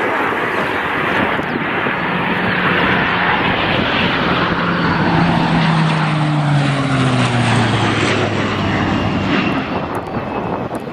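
ATR 72 twin-turboprop airliner making a low flypast: a loud drone of engines and propellers whose low propeller hum drops in pitch as the aircraft passes, about halfway through.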